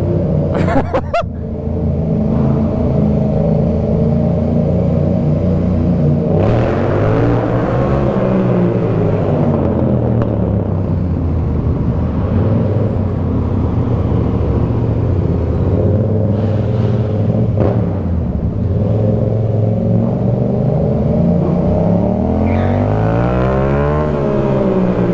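Yamaha MT-07 parallel-twin engine with an aftermarket M4 exhaust, ridden inside a concrete parking garage. The engine note climbs and falls repeatedly as it is revved and shifted, with long rising revs about six seconds in and again near the end. There is a brief clatter about a second in.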